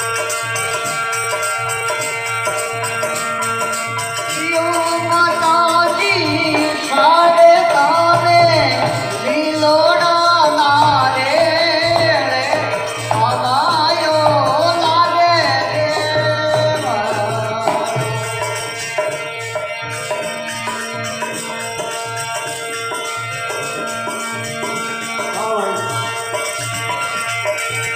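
Folk-style Hindi devotional bhajan with tabla and rattling percussion under steady held notes. A sung line runs from about five seconds in to about seventeen seconds in, and the music goes on without it after that.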